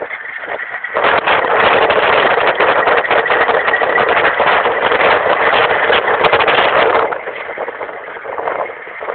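Rush of wind and road noise while riding an electric Peugeot Ludix scooter, loudest from about one to seven seconds in, then easing. The electric motor itself is almost silent.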